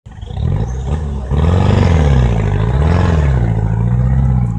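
An engine revving: its pitch climbs about a second and a half in, dips, rises again, then holds steady.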